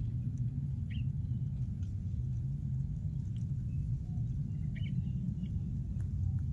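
Steady low rumble, with a few faint short high chirps scattered through it.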